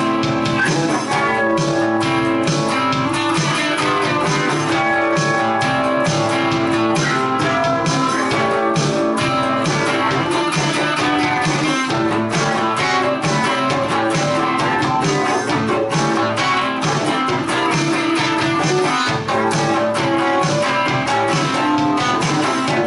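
Two electric guitars, one a semi-hollow-body, playing a rock song together with steadily strummed chords.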